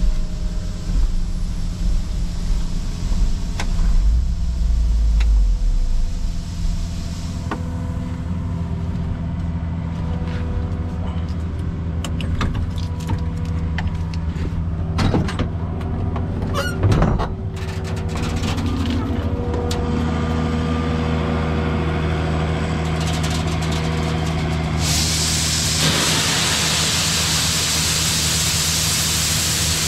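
Grain truck's engine running steadily, with a heavy rumble in the first few seconds and scattered clicks and knocks in the middle. A loud, steady hiss comes in near the end.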